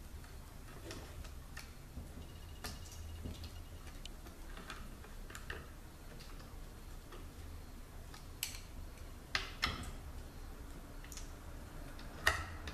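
Scattered light clicks and taps of parts and tools being handled during hand work on a transmission, over a low steady hum. There are a few sharper knocks about eight to ten seconds in and again near the end.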